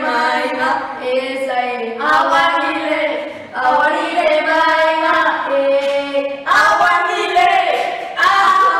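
Girls' voices singing unaccompanied, in held phrases of a couple of seconds each with short breaks between them.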